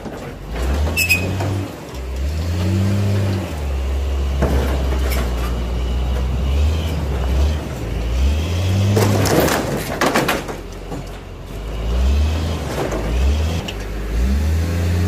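John Deere 544K wheel loader's diesel engine revving up and down as its grapple tears into the box body of an old box truck, with bursts of crunching and tearing of the box's panels. The loudest tearing comes about nine to ten seconds in.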